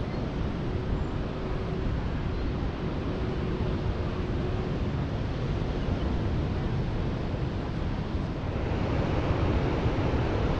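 Wind rushing over the microphone of a moving bike, a steady noisy rush that grows a little louder about eight seconds in, with a faint steady hum over the first few seconds.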